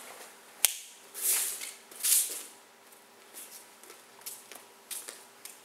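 Martial-arts gi fabric swishing and snapping, with one sharp slap, as a quick series of hand strikes and a front kick is thrown. Light barefoot steps on the mat follow near the end.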